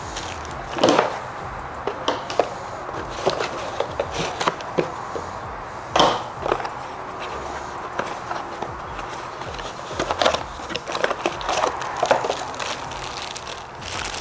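Unboxing sounds: a cardboard box and packing being handled and opened, irregular rustling and scraping with scattered knocks and thuds, the heaviest about a second in, around six seconds and around ten seconds.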